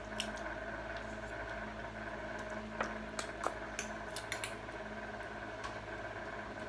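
Quiet eating at a table: scattered light clicks and taps of utensils on a plate and bowl, over a steady electrical hum.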